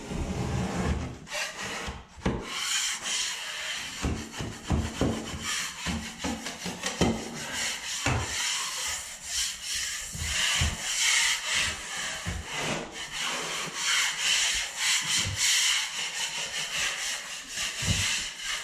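Dried joint compound on a drywall repair being scraped with a 4-inch drywall knife and hand-sanded with a sanding pad: a run of rough, scratchy rubbing strokes against the wall.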